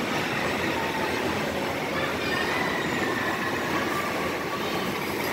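Small children's roller coaster train running along its steel track: a steady rolling rumble with faint, drifting high wheel squeal.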